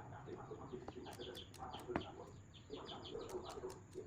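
Birds calling in the background, with scattered small clicks and one sharper click about two seconds in.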